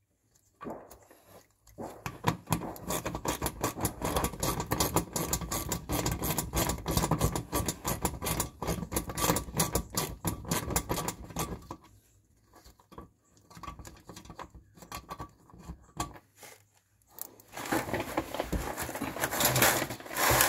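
Socket ratchet clicking rapidly as it turns the screws holding a plastic underbody splash panel. There is a long run of fast clicking starting about two seconds in, a few short bursts after a pause, and another fast run near the end.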